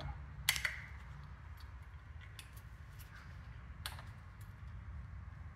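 Small clicks and taps of a metal brake hose fitting being worked into place by gloved hands, with a sharper click about half a second in and another at about four seconds.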